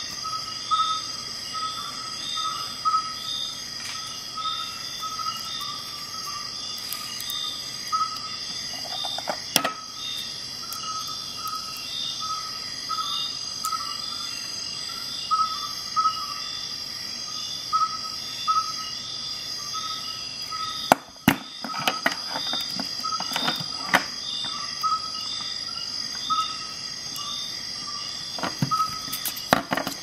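Scattered clicks and taps of metal multi-tools and a steel tape measure being handled, in a cluster about two-thirds of the way through and again near the end. Underneath runs a steady pulsing high tone, about two pulses a second.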